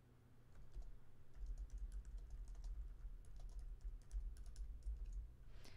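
Faint typing on a computer keyboard: quick, irregular keystrokes, with a dull low thudding underneath.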